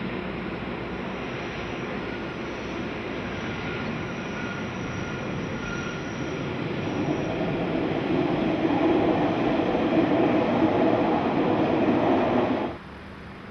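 Matterhorn Gotthard Bahn electric train running along the mountainside track: steady rumble and wheel noise with a faint thin wheel squeal over the first half, growing louder over the second half, then cut off abruptly near the end.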